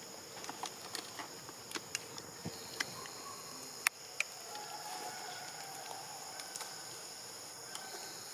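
Steady high-pitched insect chorus of the forest, with scattered faint clicks and ticks.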